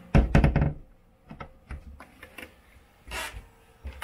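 A cabinet door and its metal bolt latch handled with a quick clatter of several knocks, followed by a few light clicks and a brief rustle.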